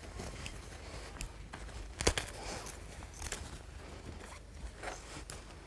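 Faint handling sounds of a person moving about a room: scattered clicks and rustling, with one sharper knock about two seconds in.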